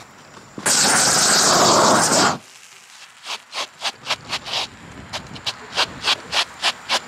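A loud rushing hiss lasts about two seconds and cuts off abruptly. Then come shuffling footsteps on a freshly laid sanded bitumen roofing membrane, short gritty scuffs about two to three a second, getting quicker toward the end, as the sheet is trodden down.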